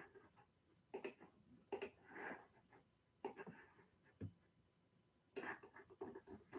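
Near silence: room tone in a small room, broken by a few faint, sharp clicks and one brief low thud.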